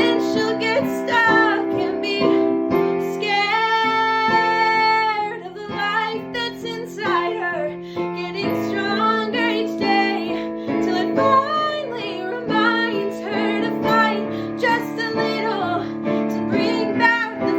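Female voice singing a song with piano accompaniment, holding one long note about three seconds in.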